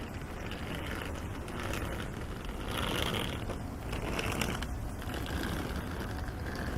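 Street ambience: a steady low traffic rumble with brief hissing swells and some mechanical rattling.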